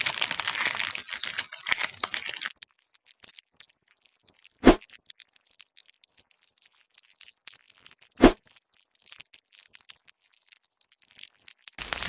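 Dubbed ASMR sound effect of a knife scraping off crusted skin: a dense, crackly crunching scrape for the first two and a half seconds. Then two short, low thumps a few seconds apart, and crunching starts again near the end.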